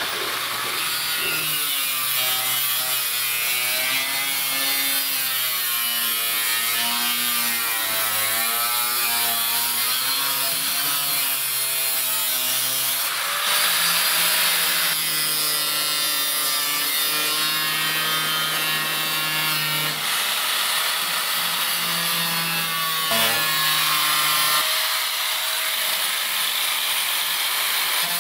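Angle grinder with a cutting wheel slicing through the steel rear fender to radius the wheel-well opening. The motor's pitch wavers up and down as the wheel bites and eases off the sheet metal, and holds steadier in the second half.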